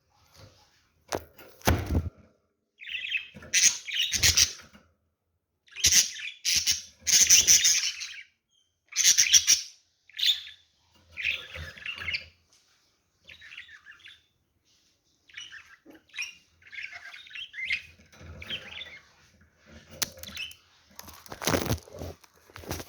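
Budgerigars chirping and chattering in irregular bursts, mixed with a few short knocks or flutters.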